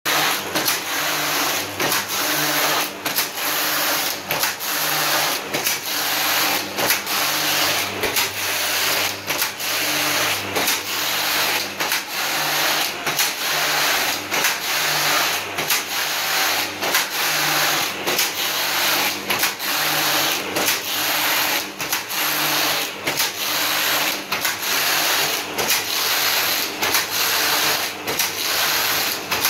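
Passap E6000 knitting machine's lock driven back and forth across the needle beds by a freshly serviced Electra 3000A motor. A steady rasping whir runs throughout, broken by short regular pauses, with a low hum that comes and goes in step.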